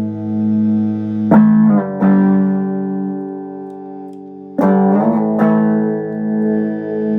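Guild X79 Skyhawk electric guitar played through a Maniac MVB1000 amplifier: chords strummed about a second in and again about four and a half seconds in, each left ringing and slowly dying away, the held notes pulsing gently.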